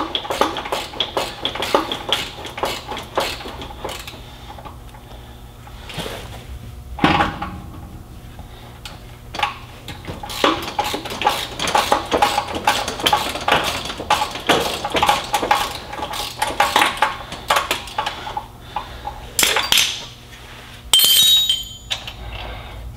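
Hand ratchet clicking in quick runs as a starter mounting bolt is backed out, with metal tools clinking. A single knock comes about seven seconds in and a sharp metallic clatter near the end.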